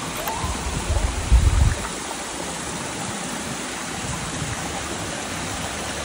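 Steady rush of a shallow stream running below a waterfall, with a few low bumps in the first two seconds.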